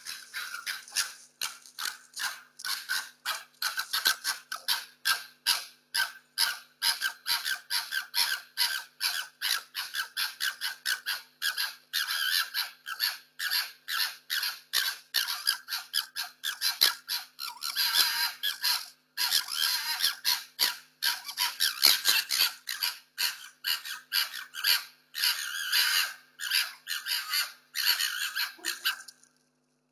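Two foxes gekkering as they fight over food and territory: rapid, harsh, chattering screeches at about four a second, stopping shortly before the end.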